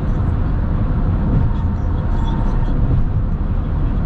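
Car cruising on a highway: a steady low rumble of tyre and wind noise that holds even throughout.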